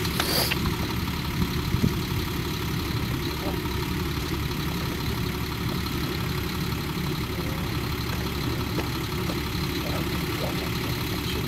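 NASA crawler-transporter's diesel engines running steadily under the load of the Mobile Launch Platform, a low, even rumble.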